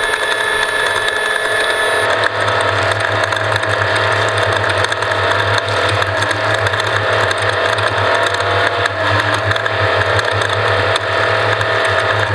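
Off-road race vehicle running over rough ground: a steady engine drone with continuous rattling and clattering from the chassis.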